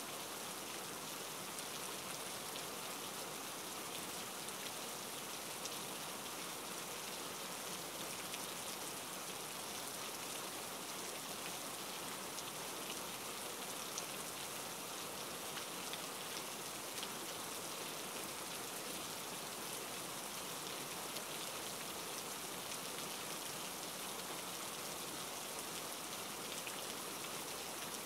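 Steady rain, an even hiss with faint scattered drop ticks.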